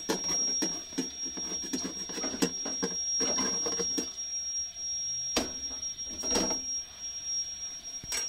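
Irregular light clicks, taps and rustles of flatbreads being handled and turned on a metal cooking tray over a wood fire, under a steady high-pitched whine.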